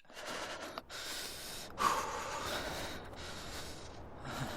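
A person breathing heavily and close to the microphone, several breaths in a row with short pauses between them, the loudest coming about two seconds in.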